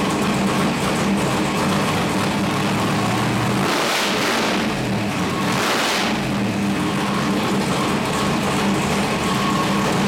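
A 502 big-block Chevrolet V8 on an engine dynamometer, running at a steady speed, with two short bursts of revving about four and six seconds in.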